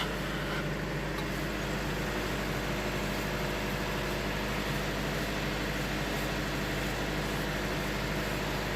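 Wood-Mizer LT70 band sawmill running steadily, its engine and band blade holding an even drone.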